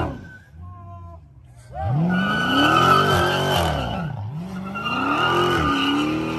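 Car engine revving hard while its tyres spin and squeal in a burnout. After a brief lull the revs climb about two seconds in, dip near four seconds, and climb again, with the tyre squeal sounding over each rise.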